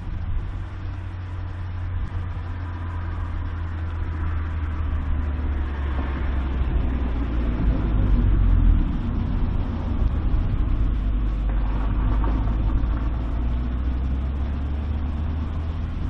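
Low steady engine rumble of a motor vehicle, growing louder to a peak a little past the middle and then holding.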